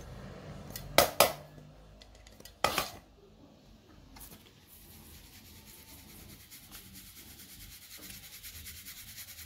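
Powdered dried tulsi leaves being sifted in a red plastic mesh sieve: a couple of sharp plastic knocks in the first three seconds, then a faint, fast, rhythmic dry rubbing as the sieve is shaken.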